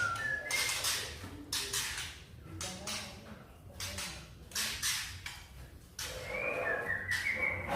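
White-rumped shama (murai batu) singing: short rising whistled phrases near the start and again near the end, between runs of short, harsh, noisy notes.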